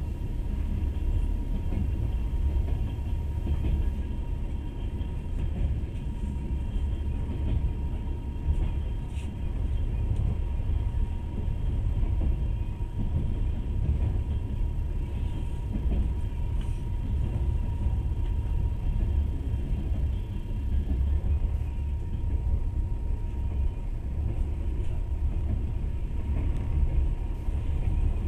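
Passenger train running along the rails, a steady low rumble heard from inside the carriage, with a faint steady whine over it.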